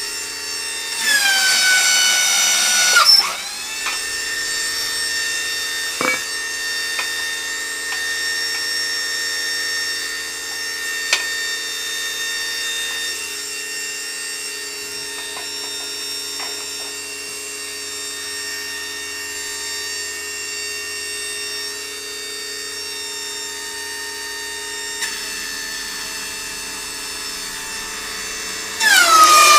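The electric motor and hydraulic pump of a homemade press's power pack running with a steady whine. About a second in, and again near the end, it turns much louder and its pitch drops and then settles. A few sharp clicks sound in between.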